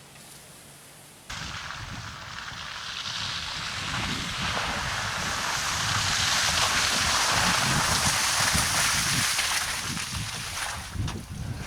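An off-road vehicle driving through muddy water, making a rushing, splashing noise. It starts abruptly about a second in, swells to a peak around the middle and eases off toward the end.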